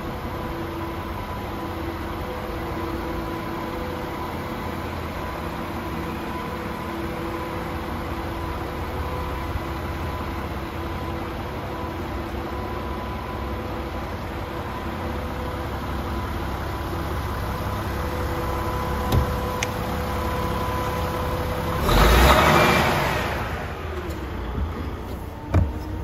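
Steady mechanical hum with a low rumble and a few steady tones underneath. About 22 seconds in, a loud rush of noise swells and fades over a second or so. A couple of sharp knocks follow near the end.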